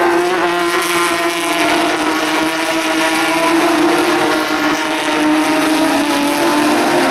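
Porsche 911 GT3 Cup race cars' flat-six engines running hard as the pack goes by, one high engine note held and slowly falling in pitch.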